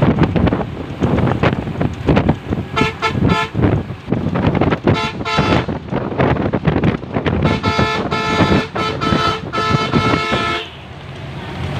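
Horns sounding in several held blasts over a loud rumbling, clattering background, the longest blast about two to three seconds and cut off sharply near the end.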